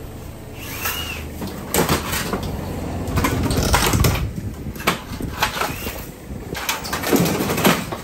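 A mini excavator's demolition grapple breaking into a wooden house frame: a string of sharp wood cracks, creaks and crunching snaps over the machine's low engine rumble, the heaviest crunching about halfway through and again near the end.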